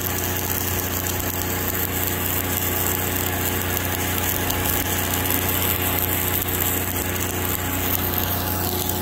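Shielded metal arc (stick) welding arc crackling steadily as a 1/8-inch Lincoln Excalibur 7018 electrode burns on rusty, uncleaned steel plate at about 124 amps, a smooth-running arc described as sounding pretty good. The engine of the Lincoln 305D engine-drive welder hums steadily underneath.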